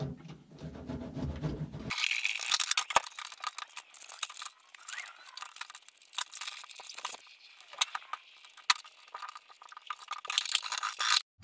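Adhesive, rubber-backed foil sound deadening mat being peeled from its paper backing and pressed onto the cab's steel floor with a small hand roller: irregular crinkling, crackling and tearing with sharp clicks. It stops suddenly near the end.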